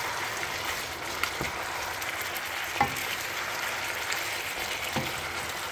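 Chicken pieces sizzling steadily in a hot non-stick wok as they sear in their own juices, with a few light knocks of a wooden spatula against the pan as the pieces are turned.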